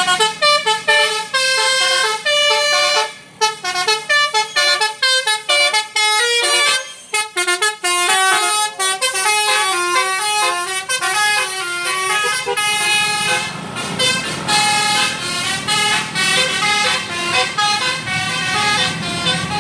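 A bus's Basuri telolet horn, a multi-tone musical horn, playing a fast tune of short stepped notes one after another with hardly a break. It is loud throughout.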